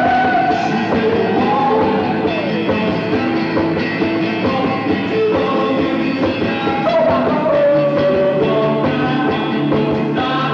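Rock band playing live: electric guitar and band, with a male voice singing, several notes sliding in pitch.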